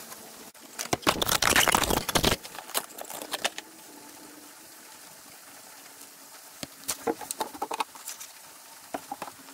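Handling noises: a loud rustle lasting about a second and a half near the start, then scattered light taps and clicks as a new oil filter and a jug of motor oil are handled and set down on cardboard.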